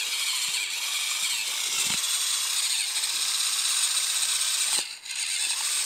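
Chef's Basics AA-battery handheld mini mixer's small motor whirring steadily as its whisk stirs pancake batter in a plastic cup, dipping briefly about five seconds in. It sounds underpowered, kind of struggling in the batter.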